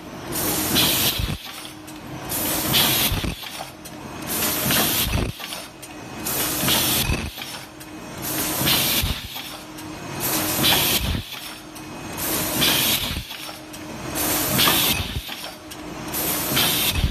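Paper bucket forming machine running in a steady cycle: about every two seconds comes a loud hissing rush of air, then a low knock, over a constant mechanical hum.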